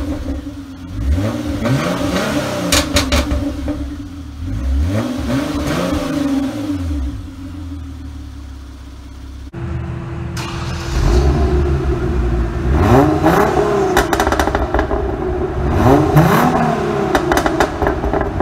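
Hyundai Genesis Coupe 3.8 V6 exhaust being revved: repeated throttle blips, each rising and falling in pitch, with the engine dropping back to idle between them. About halfway the sound jumps abruptly to a louder idle, followed by two more revs.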